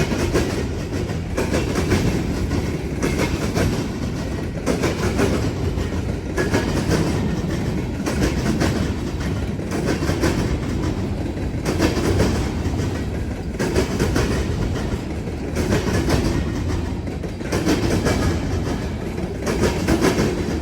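Freight cars rolling across a railroad diamond crossing: a steady rumble of steel wheels on rail, with loud clacks every second or two as the wheels strike the crossing frogs.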